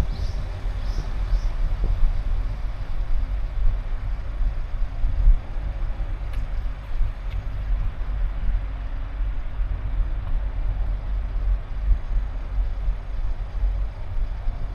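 Car driving at steady speed, with a continuous low rumble of road and wind noise that rises and falls unevenly.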